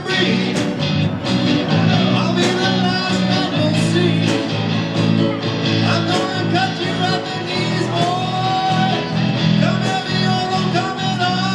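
Live rock band music: electric guitar, bass and a steady drum beat, with singing and long held notes.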